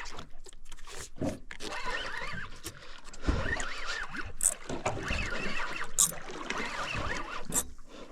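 A big shark being fought on rod and reel: fishing reel and tackle noises, with scattered clicks, short squeaky chirps and a few dull thumps.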